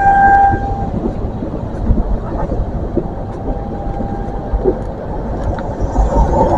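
A train horn's steady note stops just under a second in, followed by a train's low rumble.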